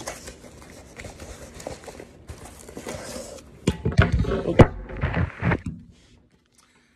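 Unboxing handling noise: paper and cardboard packaging rustling, with a cluster of sharp knocks and thumps about four to five and a half seconds in as the box and phone are jostled, then going quiet.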